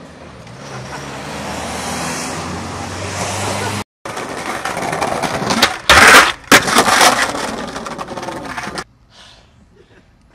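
A passing car's noise swelling for several seconds, then cut off abruptly; skateboard wheels rolling on concrete follow, with two loud clacks and a grind as the board strikes and slides along a concrete ledge, before that sound also cuts off abruptly.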